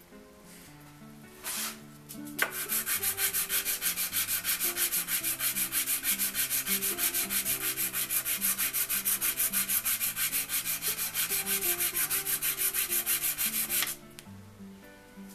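Wooden marking gauge face being sanded flat on 220-grit sandpaper laid on a stone slab: rapid, even back-and-forth rubbing strokes that start a couple of seconds in and stop shortly before the end.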